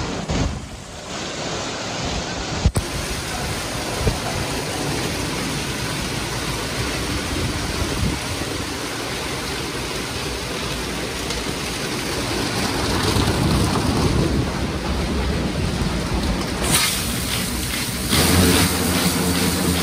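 Istobal M'NEX 22 rollover car wash's spinning brushes scrubbing a car amid water spray: a loud, steady rushing wash, with a couple of short knocks in the first few seconds. About three seconds before the end it changes abruptly to a steady machine drone with several humming tones.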